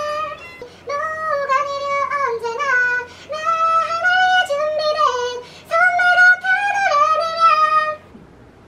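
A woman singing a melody in a high voice, phrase after phrase with short breaks for breath, stopping about eight seconds in.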